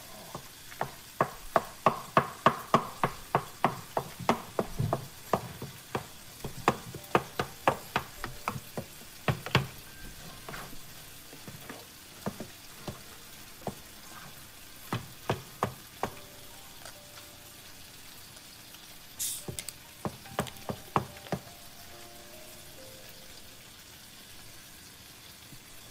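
Wooden spoon stirring thick risotto in a pot, knocking against the pot's sides in quick strokes about two to three a second. The knocks thin out after about ten seconds, with a few more bursts later, over a faint steady sizzle from the pan.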